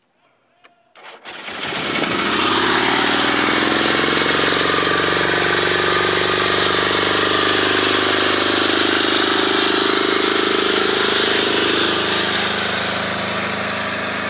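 The 750 cc engine of a CJ750 mini buggy starting about a second in, its revs climbing briefly as it catches, then running steadily at idle. The idle settles a little lower and quieter near the end.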